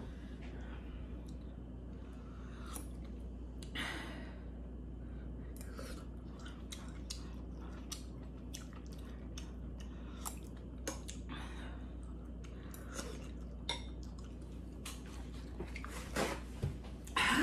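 Close-up eating sounds: a person chewing spoonfuls of chicken noodle soup, with many small clicks of a metal spoon against a stainless steel pot. Near the end comes the handling of a paper towel.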